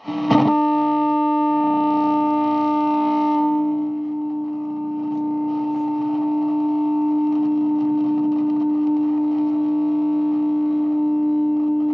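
A click, then a steady buzzy tone with several overtones from the loudspeaker of a 1949 Motorola VT73 television as a test signal is fed in.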